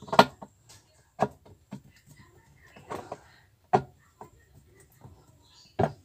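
About five sharp clicks and knocks, unevenly spaced with faint scraping between, as a screwdriver drives a body screw into the plastic pulsator of a twin-tub washing machine.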